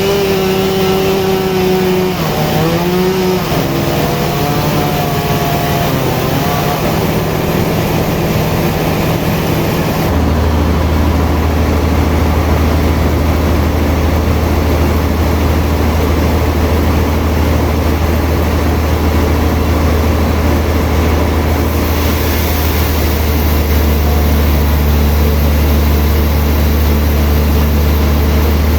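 Sawmill machinery running steadily, its pitch wavering and dipping for a few seconds early on. A deep, louder hum sets in abruptly about ten seconds in and continues.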